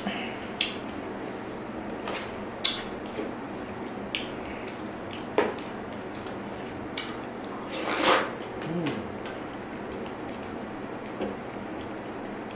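Close-up eating sounds: moist chewing and squishing of dragon fruit, with scattered sharp clicks of a utensil against a dish, and one longer, louder noisy sound about eight seconds in.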